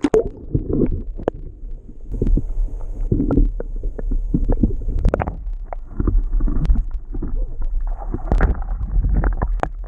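Muffled sound through a submerged camera's microphone: a steady low rumble with irregular knocks and gurgles. About eight seconds in a hooked cutthroat trout thrashes at the surface, and a burst of splashing sets in.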